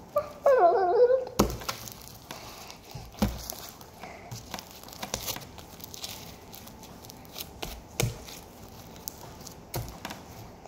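Elmer's glue slime being pulled from a plastic bag and kneaded and stretched by hand: many small crackling clicks and squelches, with a few dull thumps. A short wavering vocal sound near the start is the loudest thing.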